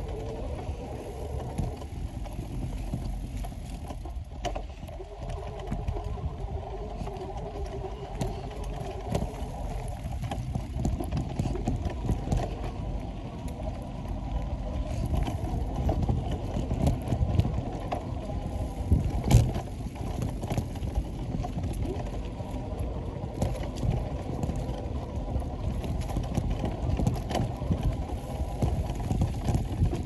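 Bicycle riding along a dirt trail: steady tyre noise and a low rumble, with frequent small clicks and rattles from the bike over bumps, and one sharper knock about two-thirds of the way in.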